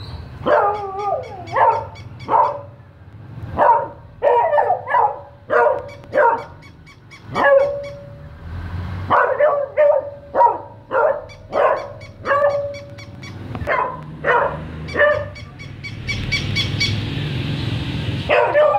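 Beagle barking again and again in short clusters at a moving toy dog, a few barks drawn out into a brief held bay.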